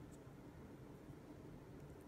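Near silence: room tone, with one faint click of small plastic parts being fitted together just after the start.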